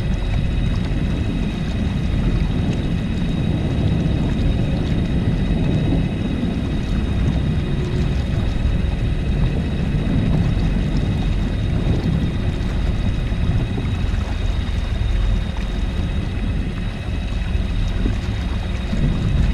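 Kayak under way on open water: a steady low rumble of wind buffeting the microphone and water rushing along the hull, swelling and easing, with a faint steady high whine underneath.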